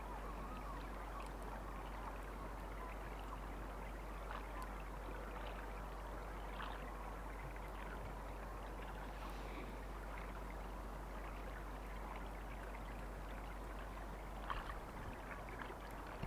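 Steady running water, with faint scattered ticks and a few slightly louder cracks near the end.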